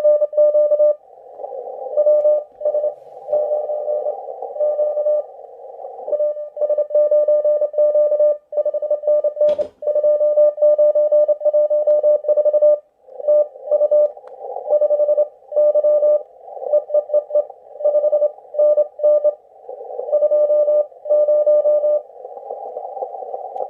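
Morse code (CW) from an amateur radio receiver played over laptop speakers: a mid-pitched tone keyed on and off in dots and dashes, over a narrow band of hiss from the receiver's CW filter. A single sharp click about ten seconds in.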